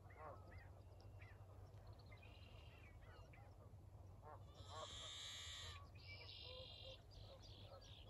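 Geese honking faintly: a run of short calls, with a longer, louder call about five seconds in and another just after.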